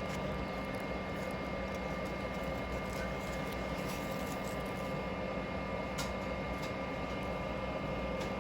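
Hot air rework station blowing steadily, a constant rush of air with a thin high whine, as it heats the solder paste on the CPU stencil. A few faint clicks.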